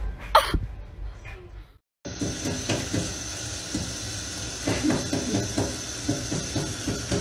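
Kitchen tap running in a steady stream into a stainless steel sink, starting after a short break about two seconds in. Before the break, a brief sharp sound near the start is the loudest moment.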